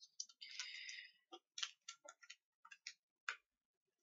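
Hands handling a small makeup item: a brief rustle about half a second in, then a string of faint, irregular small clicks and taps.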